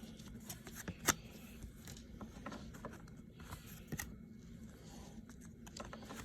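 Trading-card pack being handled and torn open: faint crinkling and tearing of the wrapper, with a few sharp clicks, the clearest about a second in and at about four seconds.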